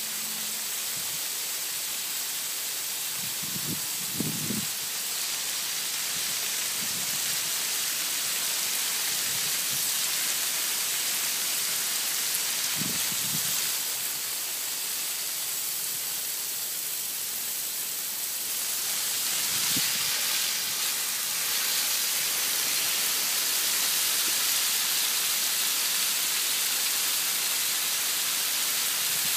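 Garden hose spray hissing steadily as the water falls on plants and ground, with a few brief faint low bumps.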